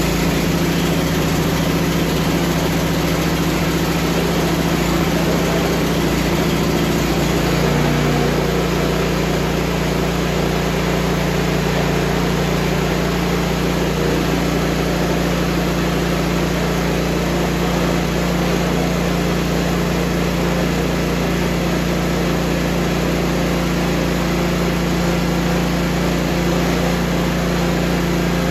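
Honda HSS928 snowblower's single-cylinder GX270 engine running steadily, just electric-started on its new battery. Its pitch steps up slightly about eight seconds in.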